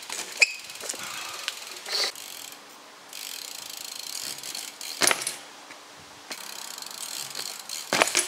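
BMX bike's rear hub ratcheting with a fine steady clicking as the bike coasts on asphalt. A few sharp knocks of the bike hitting the road during hop tricks break in; the loudest come about five and eight seconds in.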